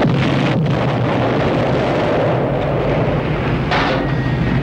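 A car exploding and burning: a heavy blast rumbling on into the steady rush of the fire, with a second sharp burst nearly four seconds in.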